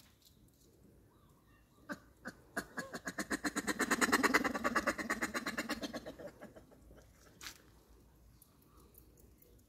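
Macaque calling in a rapid staccato series, about eight pulses a second. The calls swell to a peak over a couple of seconds, then fade away.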